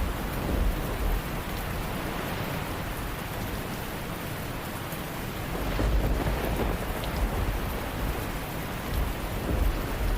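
Steady rain ambience with low rolls of thunder swelling about a second in, around six seconds in, and near the end.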